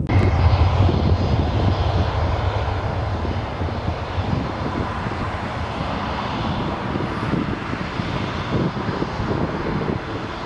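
Jet airliner engines running loud, with a dense rushing noise that starts abruptly and eases slowly over the next several seconds.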